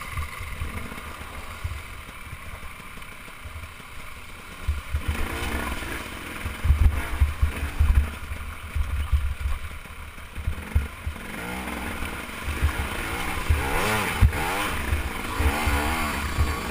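KTM enduro motorcycle engine revving up and down again and again as the bike is ridden over a rough, rocky trail, with heavy wind buffeting on a helmet-mounted microphone and knocks from the bumpy ground. The revving grows busier in the second half.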